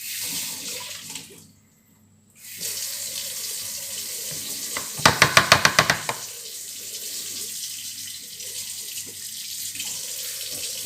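Kitchen tap running steadily, cutting out for about a second near the two-second mark and then running again. About five seconds in comes a quick run of around eight sharp clinks.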